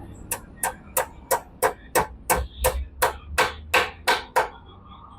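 Hammer blows seating a new steering-head cone race in a Hero Splendor's steering head: about thirteen sharp, even taps, roughly three a second, stopping a little under a second before the end.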